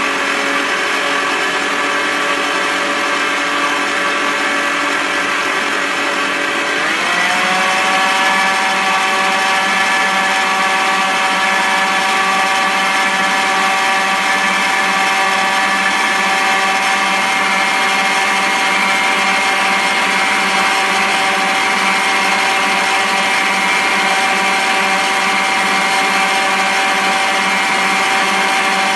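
Electric stand mixer running, its beater working dough in a stainless steel bowl. About seven seconds in the motor speeds up, its whine rising in pitch and then holding steady at the higher pitch.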